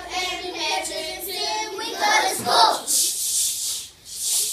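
A group of children singing a song together, then about two seconds in a spell of hissing "ch ch" sounds, in two stretches, high and without pitch.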